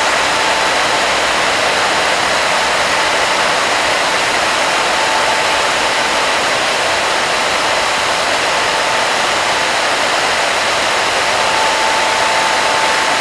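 Circular looms for woven bags running: a loud, dense, steady machine noise with a faint steady whine.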